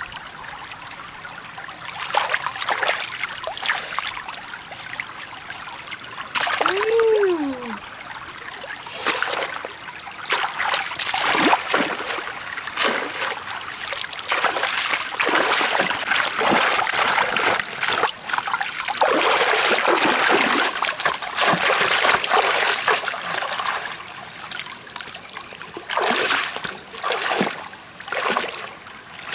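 Stream water splashing and trickling in irregular surges, with one short voiced sound about seven seconds in.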